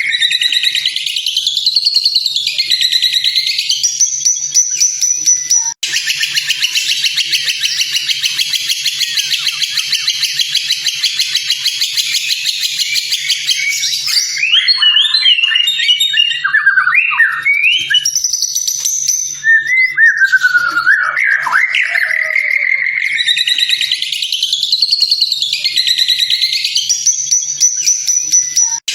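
White-rumped shama (murai batu) song: continuous fast, high chattering trills, then a run of varied whistled notes sliding up and down about halfway through. The phrases repeat, as in a looped training recording, with a brief break about six seconds in.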